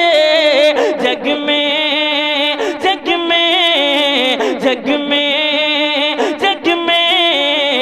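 A man singing a naat, drawing out long held notes that waver and bend in pitch, with no words clearly sung.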